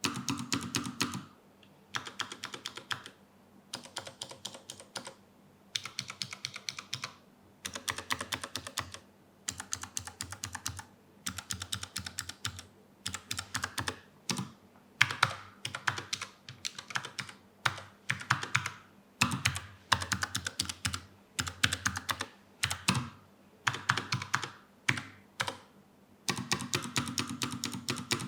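Typing on a low-profile mechanical keyboard with brown tactile switches, in quick runs of keystrokes broken by short pauses.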